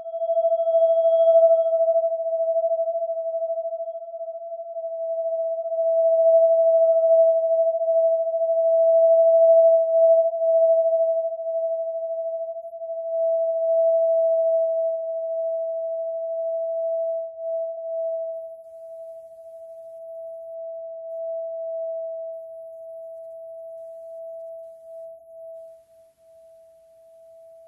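Sound-design effect of a vibrating tone, meant to suggest empty space: one steady, fairly high pure tone that swells and ebbs in loudness. It slowly fades away over the second half.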